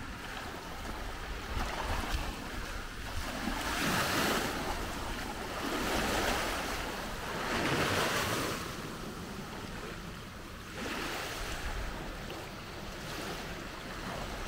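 Small waves washing over the shallows, the wash swelling and fading about every two seconds through the middle, with wind rumbling on the microphone.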